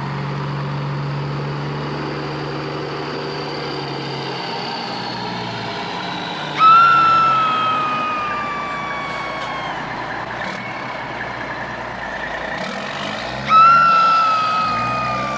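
Electronic sound effect from a toy vehicle: a tone that starts suddenly and slowly falls in pitch as it fades, heard twice about seven seconds apart, over a steady hiss and a low hum that dies away in the first few seconds.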